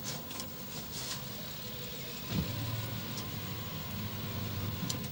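Hyundai Sonata saloon car pulling up slowly and idling, a low steady engine hum. There is a single soft thump about two and a half seconds in, after which the idle holds steady.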